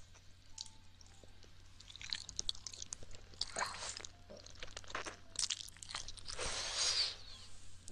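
Wet mouth and tongue sounds of ASMR ear licking: scattered smacking clicks, with two longer wet bursts about three and a half and six and a half seconds in.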